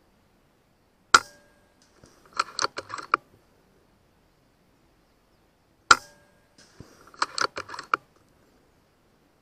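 Two rifle shots about five seconds apart, each followed by a short ringing. About a second after each shot comes a quick run of sharp metallic clicks as the action is worked for the next round.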